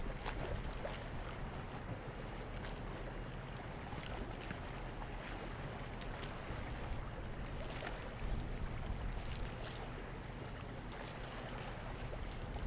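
Wind buffeting the microphone outdoors: a steady low rumble, with faint scattered ticks.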